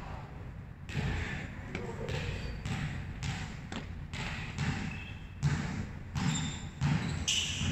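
A ball bouncing and being struck on the hard court floor: a string of sharp thuds at irregular spacing, more than one a second.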